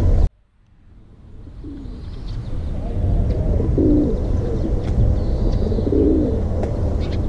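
A dove cooing, a short phrase repeated about every two seconds over a steady low outdoor rumble. A louder rumble cuts off suddenly just after the start, and the background fades back in over the next two seconds or so.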